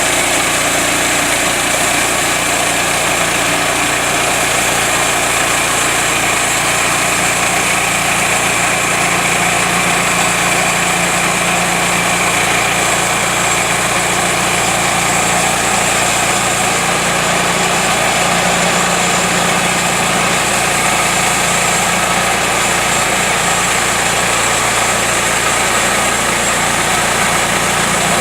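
Gas engine of a portable band sawmill running steadily.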